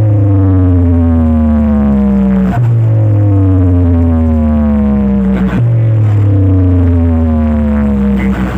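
Loud electronic music from competition DJ speaker stacks: a synthesized tone that slides downward in pitch over about three seconds, then jumps back up and repeats, over a heavy, steady bass.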